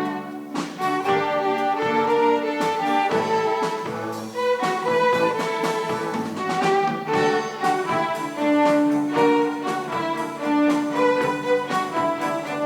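Instrumental music: bowed strings playing a melody of held notes over accompaniment, changing notes every second or so.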